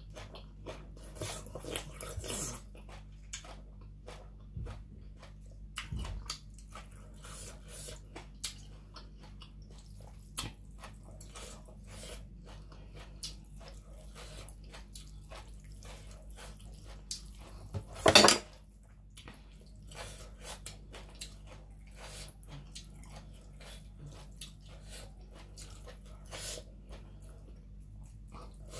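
Close-up eating sounds: wet chewing and lip smacking of a mouthful of spicy papaya salad with rice noodles, with soft clicks and squelches as fingers pick food from the plate. One louder, brief noise about eighteen seconds in.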